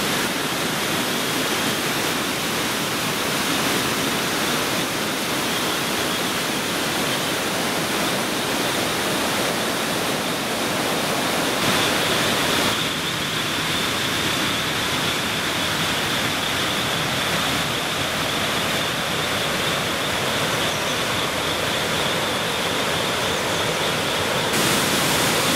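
Mountain stream rushing over boulders in white-water cascades: a steady, unbroken rush of water.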